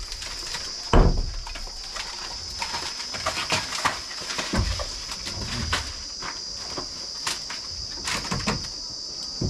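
Knocks and thuds of a wooden door frame being worked loose from a mud wall, with one heavy thud about a second in and a lighter one about halfway through. A steady high insect drone runs underneath.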